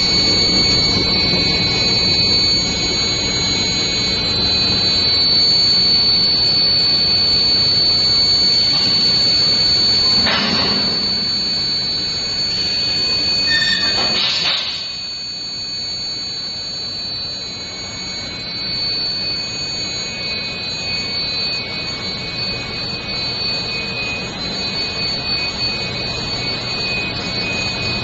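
Steel bar induction heating and quenching line running: a steady high-pitched whine from the induction heater over a broad machinery rush. The rush drops fairly suddenly about halfway through.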